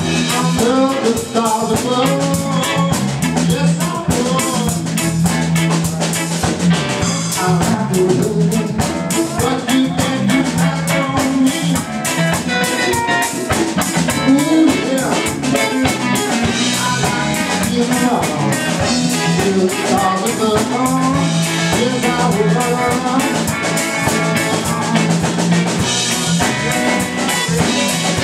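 A live band of two electric guitars, electric bass and drum kit playing a funk groove.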